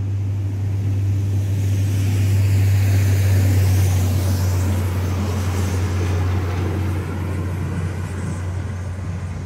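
Diesel engine of a PKP Energetyka rail maintenance vehicle running with a steady low drone as it passes. It grows louder to about three or four seconds in, then slowly fades as the vehicle moves away.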